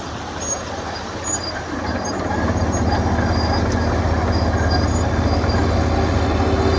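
Komatsu D61EX crawler dozer working, its diesel engine running under load with rattling and squeaking from the running gear. About two seconds in it grows louder and the engine note settles into a steady low drone.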